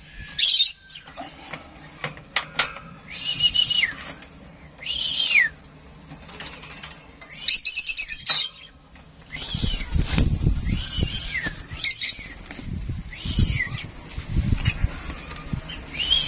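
A young lovebird calling in short arching chirps, one every second or two, with a harsher squawk about halfway through. A couple of sharp clicks sound about two seconds in, and a low rumbling noise on the microphone joins in the second half.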